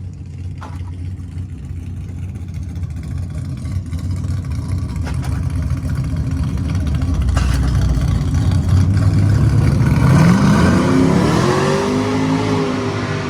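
A car's engine rumbling and growing louder, then revving up hard with a rising pitch about ten seconds in as the car accelerates on a drag-strip run.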